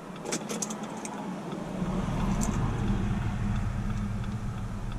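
A few quick light clicks, then a low vehicle rumble that builds up and holds steady.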